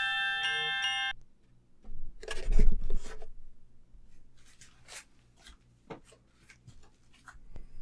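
A chiming tune stops abruptly about a second in. Then comes a burst of rustling with a dull thump, and scattered small clicks and rubbing sounds of someone moving about and handling things in a small dark room.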